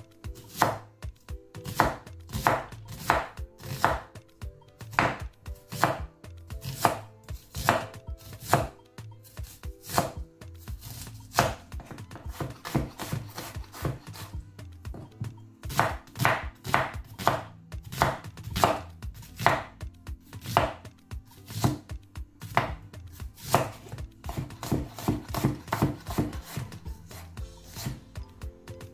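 Chef's knife slicing an onion into rings on a wooden cutting board: a steady run of sharp knocks of the blade on the board, about two a second, quickening for a few seconds near the end.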